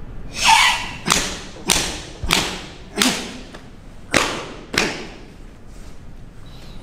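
A quick series of about seven sharp open-hand slaps on a tensed karateka's bare back, shoulders and legs, roughly one every half second to second, stopping about five seconds in. This is Sanchin shime: the teacher strikes the student's body to test that his muscles are held tense in the stance.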